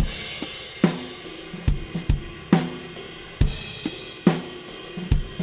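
Multitrack drum kit playing a steady groove, with kick, snare on a regular beat and a constant wash of cymbals and hi-hat. It plays back through the FG-2A optical compressor plugin on the drum submix, with peak reduction and make-up gain turned up, so the drums are compressed.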